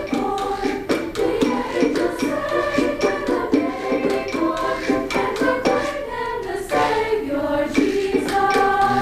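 Women's choir singing in parts, with sharp percussive beats running through the song.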